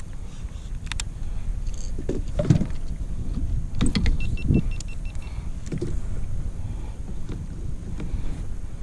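Wind rumbling on the microphone over choppy water, with several knocks and a short run of quick clicks as fishing rods and gear are handled on a plastic kayak.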